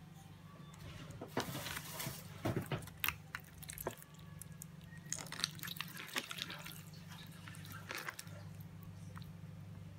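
Clear slime squelching and popping with irregular wet clicks as hands squeeze and stretch it. A steady low hum runs underneath.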